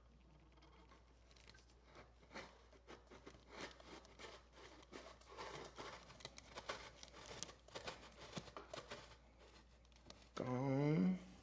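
Motorcycle exhaust silencer being worked back onto the header pipe by hand: faint scattered metal clicks and scraping. Near the end comes a short, louder vocal sound that rises in pitch.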